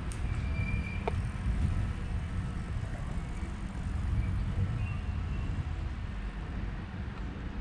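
Outdoor ambience dominated by a steady low rumble, with a few faint, short high chirps and a single light click about a second in.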